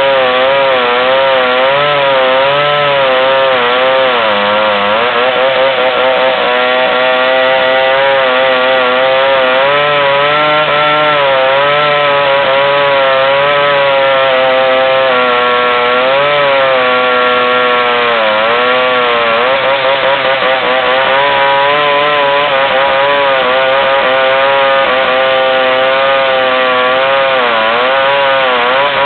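Two-stroke chainsaw running hard while cutting wood into planks. Its engine pitch wavers continuously and sags deeply several times as the chain bites under load, then picks back up.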